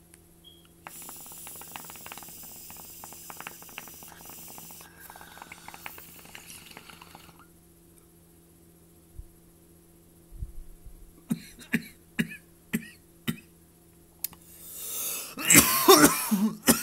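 A hit drawn through a small water bubbler on a vape cartridge: soft bubbling and hiss for about six seconds, then a pause. From about eleven seconds in, a man coughs several times, ending in a loud coughing fit near the end.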